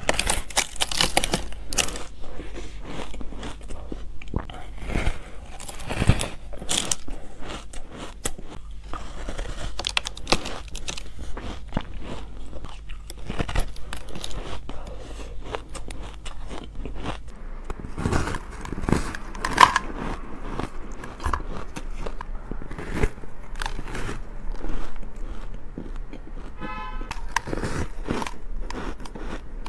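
Close-up bites into a slab of powdery, crumbly frozen ice, with soft crunches and crumbling as pieces break off and are chewed, over and over at an irregular pace.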